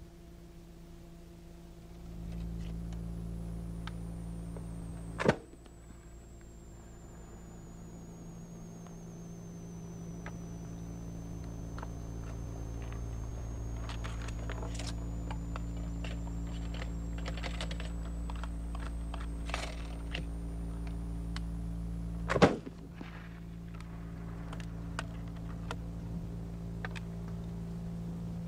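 Flintlock Brown Bess musket being loaded from paper cartridges: light clicks and rattles of the ramrod and lock over a steady hum. Two sharp bangs come about 5 and 22 seconds in, the louder later one the musket firing after the charge is rammed.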